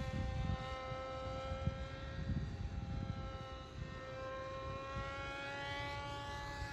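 Brushless electric motor (1400 kV) and propeller of a small foam-board RC flying wing, whining steadily in flight. Its pitch shifts slightly now and then as the throttle changes. Wind rumbles on the microphone underneath.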